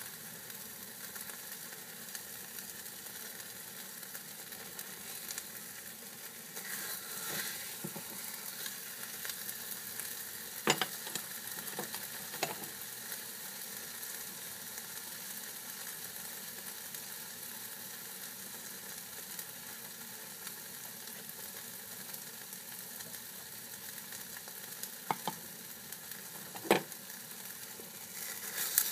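Scrambled eggs sizzling steadily in a frying pan, with a spatula stirring and scraping them. A few sharp knocks of the spatula against the pan, the loudest about eleven seconds in and near the end.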